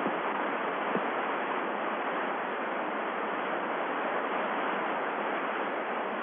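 Steady hiss of an open UHF air-to-ground radio channel between transmissions, narrow like a voice radio link, with a faint click about a second in.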